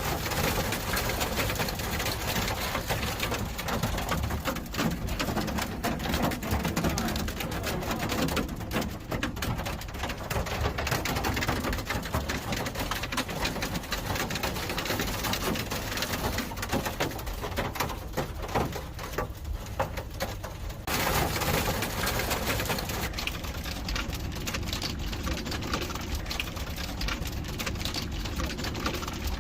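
Steady rushing noise of heavy rain and floodwater in a flooded street, cut off abruptly about two-thirds of the way through and then resuming.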